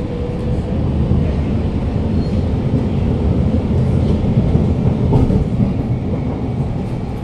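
Siemens C651 metro train running on elevated track, heard from inside the carriage: a steady low rumble of wheels and running gear. A faint whine fades out just after the start.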